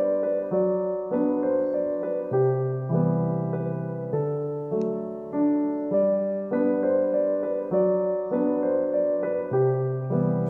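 Background music: a piano-like keyboard playing an unhurried melody of struck notes that ring and fade.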